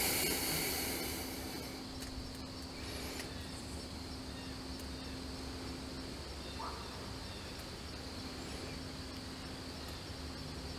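Quiet outdoor background: a steady low hum and a faint steady high hiss. A louder rustling noise dies away in the first couple of seconds.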